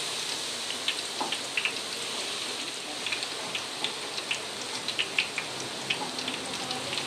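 Batter-coated kenikir leaves deep-frying in a wide wok of hot oil: a steady sizzle dotted with frequent small pops and crackles.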